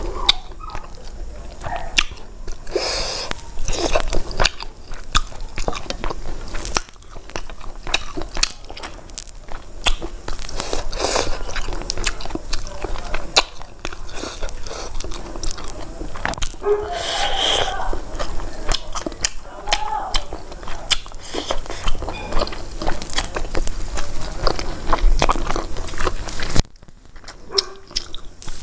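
Close-miked eating: a person biting and chewing a mouthful of food, with many small clicks and mouth noises. The sound turns quieter about two seconds before the end.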